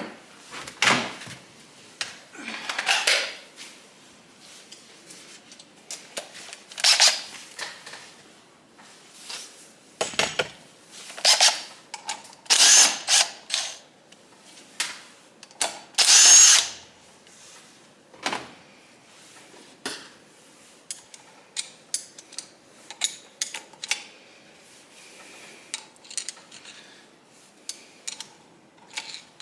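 A small power tool running in short bursts of about a second, a few seconds apart, among sharp metal clicks and clinks of tools and parts.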